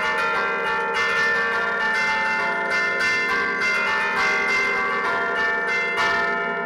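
Church bells played by hand from a wooden bell keyboard (tastiera): keys struck with the fists pull the clappers by chains against the bells, ringing a quick tune of overlapping notes. Heard close up in the belfry, with a short break right at the end.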